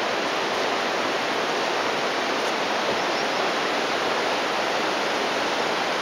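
Steady, unbroken rush of water from Sogi Falls and the rapids below it.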